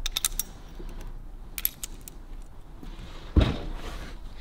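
Small metal hub parts clicking and clinking as they are handled on a workbench, then a single heavy thump about three and a half seconds in as the spoked motorcycle wheel is stood upright.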